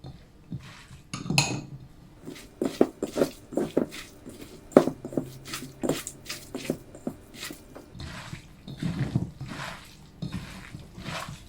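Hands mixing sliced onions with spices and rice flour in a bowl for ulli vada batter: an irregular run of squishing, rustling strokes with clicks and knocks against the bowl.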